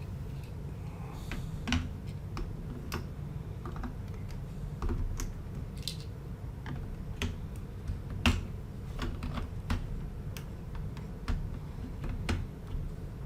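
Plastic Lego bricks clicking and tapping as pieces are handled and pressed together, in irregular sharp clicks.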